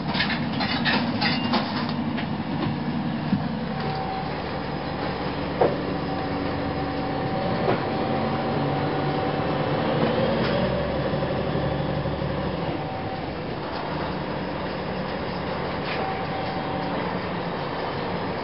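2004 Gillig Phantom transit bus under way, its Cummins ISM diesel running with a steady drone while the Voith transmission howls with a steady whine that comes and goes. Clicking rattles in the first couple of seconds and two sharp knocks midway.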